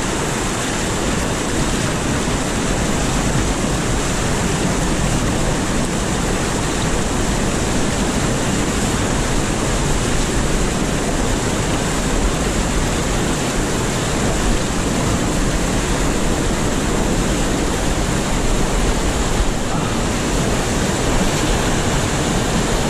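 Whitewater rapids of the Chatooga River rushing over rocks right beside the microphone, a loud, steady roar of water.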